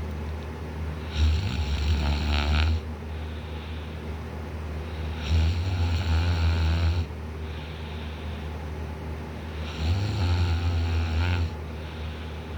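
A sleeping man snoring loudly. There are three snores about four seconds apart, each lasting about a second and a half, with quieter breathing between them.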